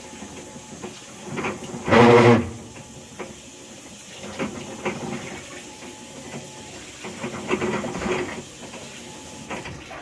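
Whirlpool Cabrio top-load washing machine running with a loud grinding from inside the tub. It comes and goes in uneven bursts, the loudest about two seconds in. It is the sign of a failed, stripped actuator (drive) plate.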